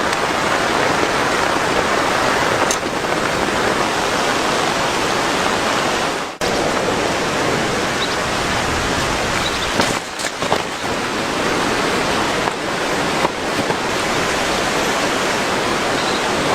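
Heavy rain falling: a loud, dense, steady hiss with a few faint ticks, broken by a brief dropout about six seconds in.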